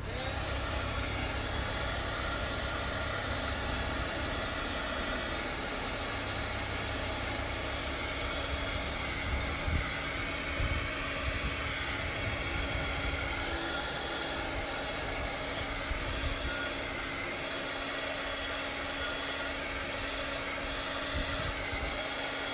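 Handheld craft heat gun switched on right at the start and running steadily, blowing hot air onto synthetic fabric flower petals to melt them, a steady rush of air with a faint motor hum. Wind gusts rumble on the microphone underneath.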